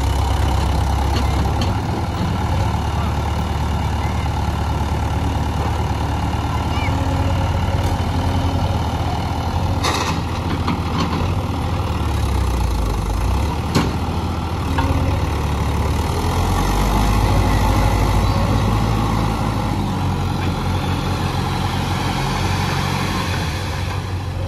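Diesel engine of heavy earthmoving machinery running steadily, its note shifting several times as the load changes. Two sharp knocks, about ten seconds in and about fourteen seconds in; the second is the loudest moment.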